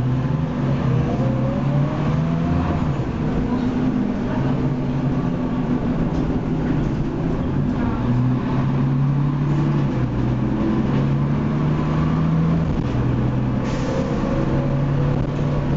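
Leyland Lynx Mk2 bus under way, its six-cylinder Cummins L10 diesel heard from inside the saloon. The engine note holds steady and shifts up and down in steps several times as the bus changes speed, with a faint whine rising over the first two seconds.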